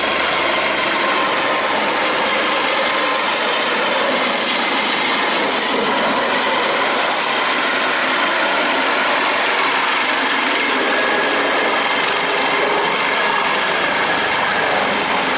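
Pawan Hans helicopter coming in to land: steady, loud rotor and turbine noise with a thin high whine running above it.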